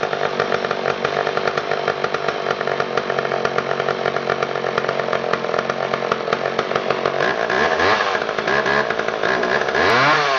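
Vintage McCulloch Mac 1010 two-stroke chainsaw running at a steady idle. From about seven seconds in it is revved up and down several times.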